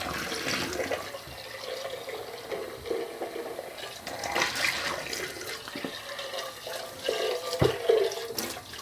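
Tap water running and splashing as a coffee carafe is rinsed out in a sink after an OxiClean soak, with a single sharp knock near the end.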